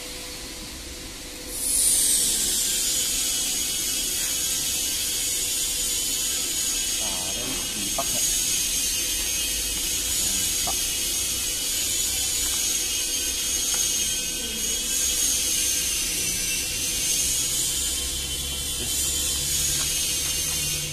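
A high-speed motor starts with a high whine and a hiss. Its pitch dips slightly as it comes on, then it runs steadily and cuts off at the end.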